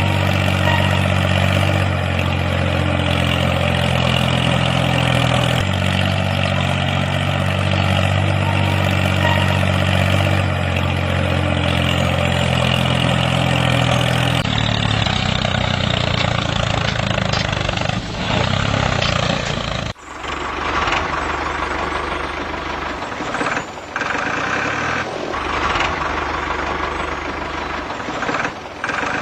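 Vehicle engine running steadily, then changing in sound, with an abrupt break about two-thirds of the way through.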